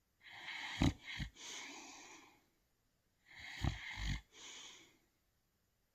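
A sleeping dog snoring: two long snoring breaths about three seconds apart, each with a couple of short snorts in it.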